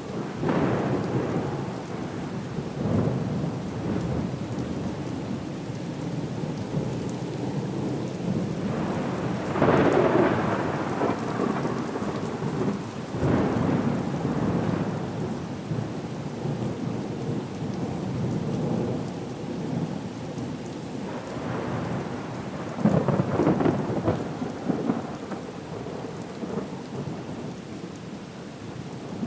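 Storm ambience: steady rain with rolls of thunder that swell louder several times and die away.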